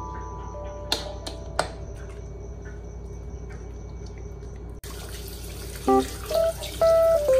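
Water dripping and trickling into a bathroom washbasin from the tap, with two sharp ticks about one and one and a half seconds in; from about five seconds a brighter water hiss. Soft background music notes play at the start and again near the end.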